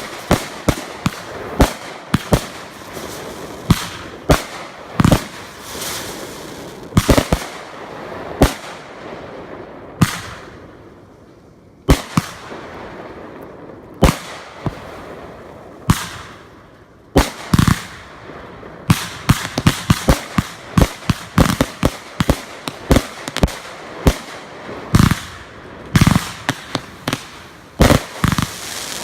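Consumer fireworks going off: a run of sharp bangs and crackling reports, sparse with a lull near the middle, then a fast, dense barrage of pops and bangs through the second half.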